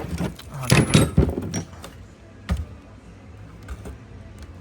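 Handling noise: a cluster of clatter and knocks about a second in, then a single sharp knock, with a few faint clicks near the end.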